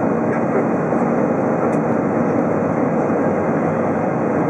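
Steady jet-engine and airflow noise inside the cabin of an Airbus A320 climbing out after take-off, an even rushing hum with no change in level.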